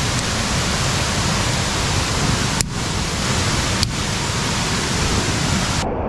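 A 40 m waterfall rushing steadily close by, a dense, even wash of falling-water noise. It dips out briefly twice around the middle, and just before the end turns duller as the high hiss falls away.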